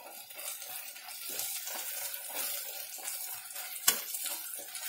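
Thick cashew curry gravy sizzling in a kadhai while a spatula stirs the spices into it, with a steady hiss and scraping strokes, and one sharp knock of the spatula on the pan about four seconds in.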